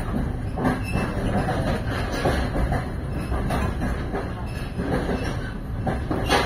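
Passenger train carriage rolling out of a station, heard from inside the car: a steady low rumble with sharp clacks of the wheels over the rail joints about every second, one of the sharpest near the end.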